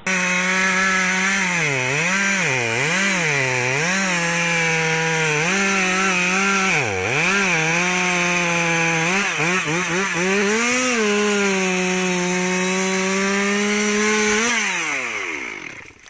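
Two-stroke chainsaw cutting into the base of a standing tree trunk, its engine speed dipping and climbing back again and again as it works in the cut. It then holds a steady high pitch before winding down near the end as the throttle is released.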